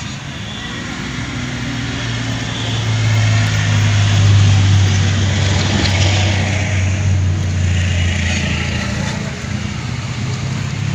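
A motor vehicle's engine running close by with a steady low hum, growing louder through the middle and then easing off.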